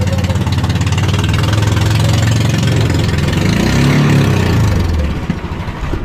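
Fishing boat's engine running steadily and loud. Its pitch rises and falls briefly about four seconds in, and it drops away a little after five seconds.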